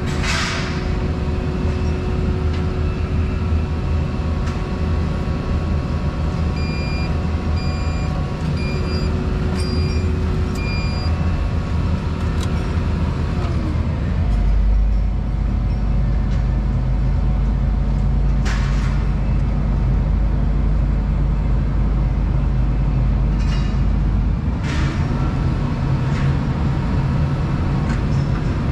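Volvo 235EL excavator's diesel engine and hydraulics running, heard from inside the cab. About a quarter of the way in come five short electronic beeps. About halfway the low drone grows much heavier for about ten seconds, as under load, with two brief hisses.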